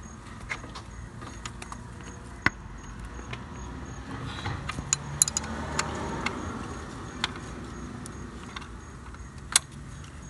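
Scattered metallic clicks and clinks of a 13 mm socket wrench being fitted and worked on an alternator mounting bolt, with a few sharper knocks about two and a half, five and nine and a half seconds in.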